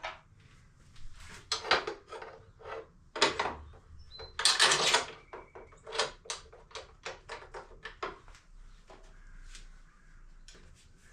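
Hands and tools working on an electric dirt-bike conversion during the controller install, making irregular clicks, taps and knocks. The loudest sound is a scraping rustle about four and a half seconds in, followed by a quick run of light ticks that dies away after about eight seconds.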